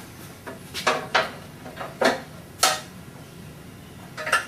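A dust scoop being slid onto a Burr King 760 belt grinder: several sharp, irregularly spaced clanks and knocks as the parts are fitted.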